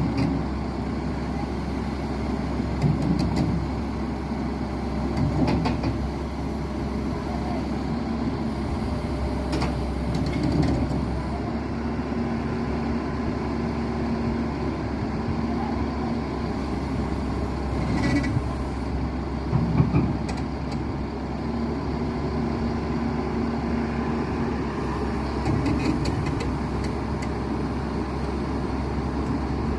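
JCB JS215 tracked excavator's diesel engine running steadily with a low rumble, with a few short knocks and a faint whining tone that comes and goes twice in the middle.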